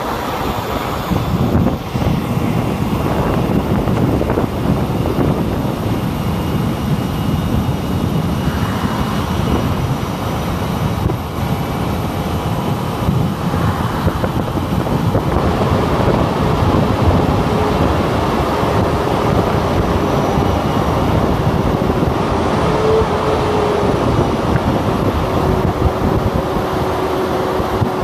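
Steady engine, tyre and wind noise heard from inside a moving vehicle's cab at highway speed. A faint steady whine joins in during the second half.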